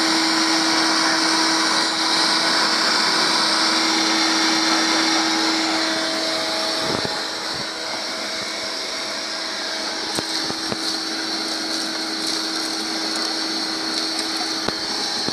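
Craftsman 5.5 HP wet/dry shop vacuum running with a steady whine and rushing air. About halfway through its level and pitch drop a little, and from there scattered sharp ticks sound, from debris being sucked up the hose off the deck.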